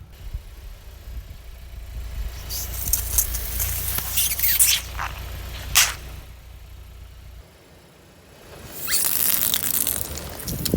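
A car's engine hums low while its tyre crushes things: crackling, and a sharp crack about six seconds in. The hum stops about seven seconds in, and a loud hissing, crackling noise starts near nine seconds.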